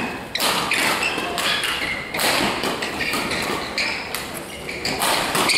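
Badminton rally: rackets striking a shuttlecock and players' footfalls on the court floor, sharp irregular knocks with short squeaks, in a large echoing hall with voices.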